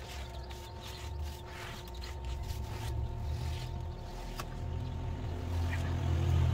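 Hand scrubbing inside an empty hatcher cabinet, a series of short rubbing strokes every half second or so. Under it runs a steady low engine-like rumble that grows louder towards the end.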